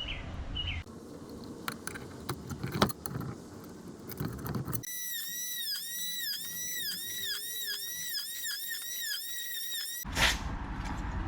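Clicks and knocks of hands and tools at the speaker's wiring and mounting as it is cut loose and disconnected. About five seconds in, the background cuts out and a high, warbling tone repeats in quick dips for about five seconds, then stops abruptly.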